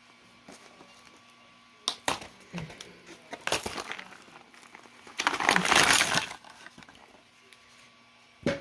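Cardboard toy packaging being handled: scattered clicks and scrapes as the inner tray slides out of its box sleeve, then a loud rustling scrape of cardboard lasting about a second, about five seconds in. A short thump follows near the end.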